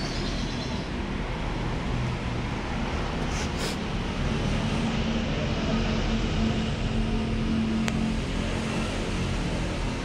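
Steady low rumble of background motor traffic. An engine's hum rises out of it for a few seconds in the middle, and there is a single sharp click near the end.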